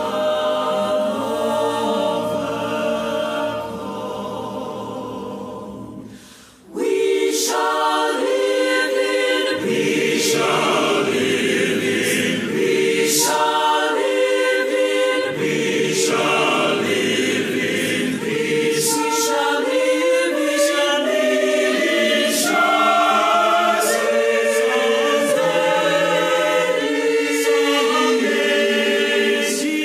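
Virtual choir of young mixed voices singing: a held chord with the men's low voices fades out, then about seven seconds in the women's voices alone take up a new phrase in short, separated syllables.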